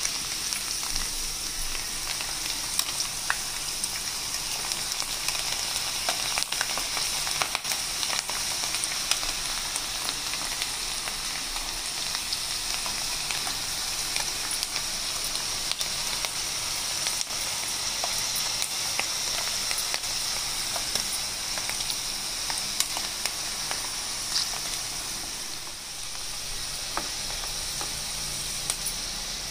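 Soaked chana dal (split Bengal gram) deep-frying in hot oil inside a wire-mesh strainer: a steady sizzle with scattered crackles and pops.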